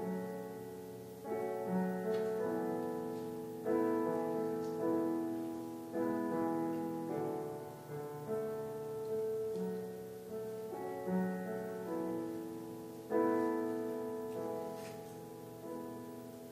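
Solo piano playing slow, sustained chords, a new chord struck about every second and left to ring and fade.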